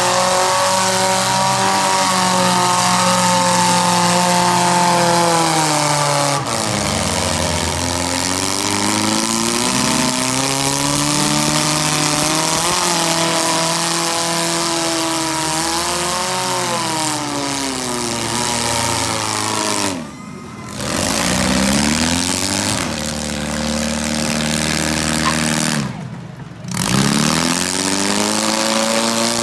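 Four-cylinder demolition derby car engines revving hard, their pitch climbing and falling again and again as the cars accelerate and spin on dirt. The sound drops away briefly twice in the last third.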